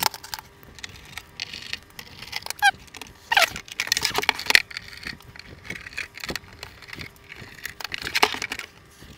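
Handling of a hard-shell portable record player case: irregular clicks, knocks and scrapes as the lid is shut and the case is turned over on a bench, with a brief squeak about two and a half seconds in.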